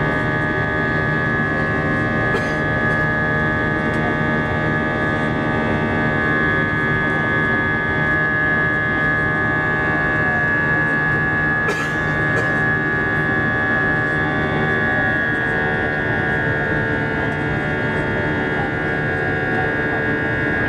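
Airbus A320 jet engine and airflow inside the cabin during climb-out: a steady, loud hum with a constant high whine from the turbofan over rushing air noise. The whine shifts slightly in pitch about three quarters of the way through.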